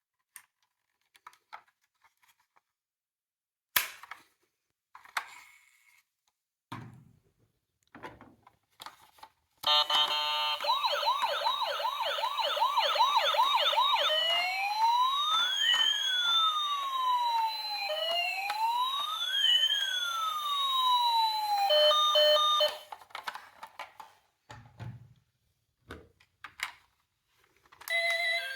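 Toy emergency vehicle's electronic siren through its small speaker. It starts about ten seconds in with a fast yelp of about two warbles a second, changes to two slow rising-and-falling wails, and cuts off after about thirteen seconds. Scattered light clicks and taps come before and after it.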